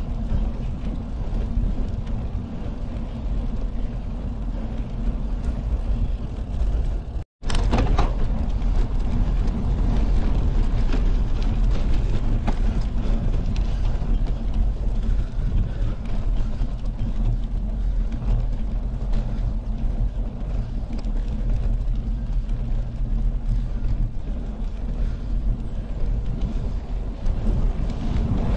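Steady low rumble of wind and bicycle tyres on a concrete path, picked up by a handlebar-mounted camera while riding. The sound cuts out completely for a moment about seven seconds in.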